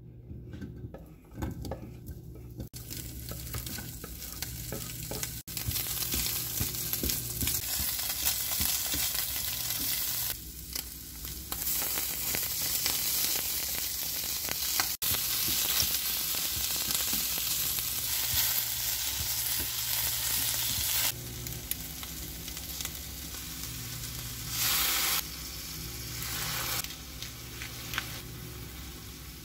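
Diced Spam sizzling as it hits a hot pan about three seconds in, then frying steadily with sliced onion.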